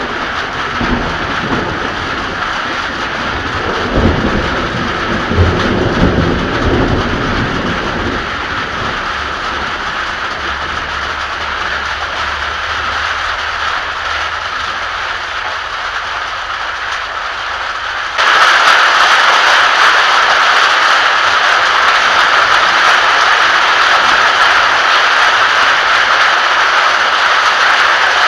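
Steady rain with thunder rumbling through the first several seconds. About two-thirds of the way through, the rain abruptly turns louder and hissier, a heavier downpour.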